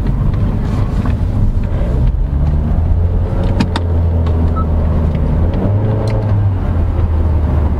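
Cabin noise inside a 2022 Honda City RS on the move: a steady low drone from the 1.5-litre engine and the road, with little tyre noise on a rough road, which is the sign of good noise insulation. A couple of brief clicks come through partway in.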